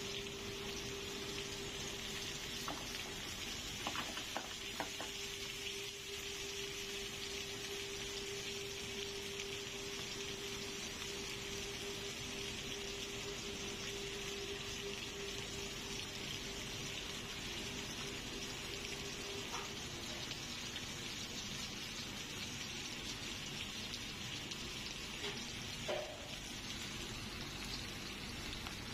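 Bone-in beef steak sizzling in oil in a cast-iron skillet: a steady frying hiss with a few scattered pops, the strongest near the end. A faint steady hum runs under it and stops about two-thirds of the way through.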